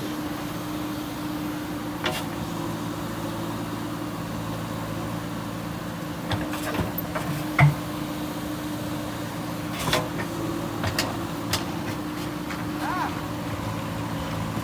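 JCB backhoe loader's diesel engine running steadily, with a scattering of short sharp knocks and clanks, the loudest about halfway through.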